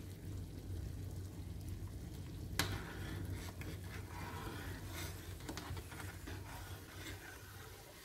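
Chilli-garlic dipping sauce boiling in a stainless steel pot, bubbling and crackling steadily while a metal spoon stirs it, as it is simmered down to thicken. A sharp clink of the spoon against the pot sounds once about two and a half seconds in.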